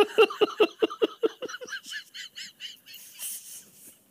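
A man's fit of helpless, stifled laughter: quick rhythmic ha-ha pulses, about six a second, that fade about halfway through into higher squeaky wheezes, then a breathy gasp.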